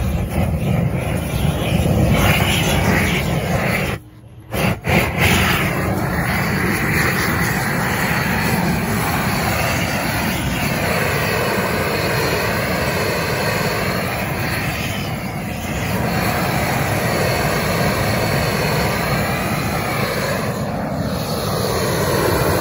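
Propane weed-burner torch running at full flame, a loud steady rushing roar, as it singes the fur off an opossum carcass. The flame drops out briefly about four seconds in, comes back in two quick bursts, then runs steadily again.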